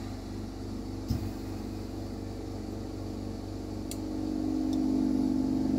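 Steady mechanical hum with a lampworking bench torch burning, and a sharp click about a second in. The hum grows louder in the second half.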